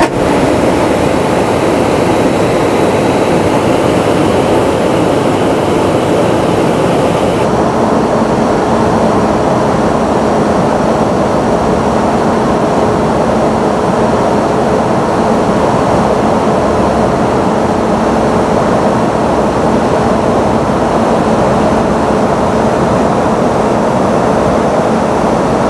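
Steady, loud rush of jet engine and airflow noise heard inside an aircraft in flight. About seven seconds in it changes abruptly to a slightly duller, steady drone with a faint low hum running under it.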